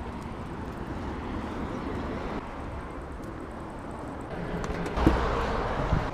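Steady outdoor background noise, an even rushing hiss with no clear single source, growing louder with a low rumble about five seconds in.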